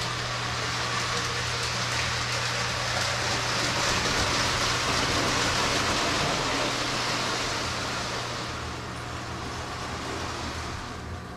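Lionel O-gauge toy trains running on three-rail tinplate track: a steady rolling rush of wheels and motors that grows louder through the middle and eases off after about eight seconds, over a steady low hum.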